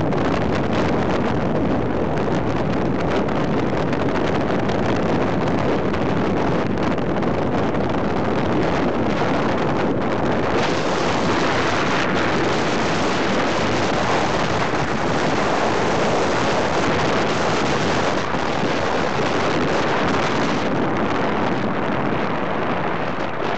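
Wind rushing over the microphone on a moving Kawasaki Barako motorcycle, mixed with its running engine and road noise. The steady rush grows hissier from about ten seconds in until about twenty.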